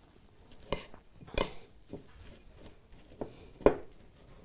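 A metal spoon clinking against bowls while syrup-soaked fruit is scooped out: four short clinks, the second and last loudest.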